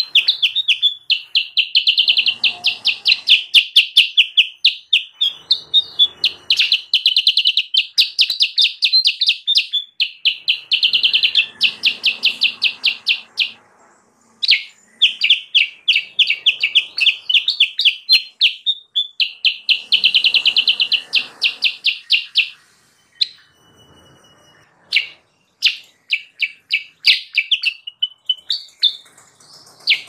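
Black-capped bulbul (kutilang sutra) calling in fast runs of rapid, high, repeated notes. Each run lasts a few seconds, with short breaks between runs.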